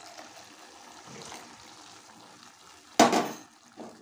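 Milk poured into a steel pan of simmering bottle gourd curry, with a low liquid hiss; about three seconds in, a single loud clank.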